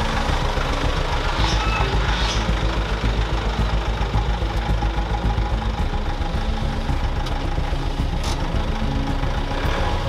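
Nissan Navara pickup's engine idling steadily, a low, evenly pulsing throb.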